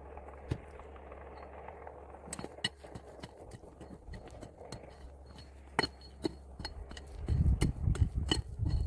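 Stones knocking and clinking against each other as they are handled and set, a string of sharp separate clicks starting a couple of seconds in, with heavier low thumps near the end.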